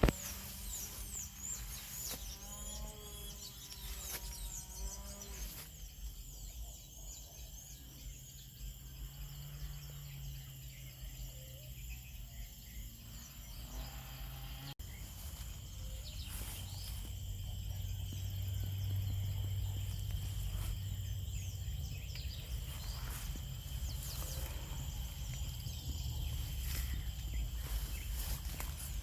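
Outdoor ambience of birds chirping over a steady high-pitched insect drone, with a longer wavering animal call a few seconds in. A low hum swells in the second half.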